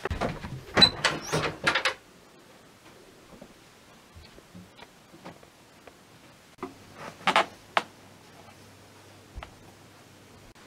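A wooden interior door being handled: a run of sharp latch clicks and knocks in the first two seconds, then another short clatter about seven seconds in. A low steady hum comes in just before the second clatter.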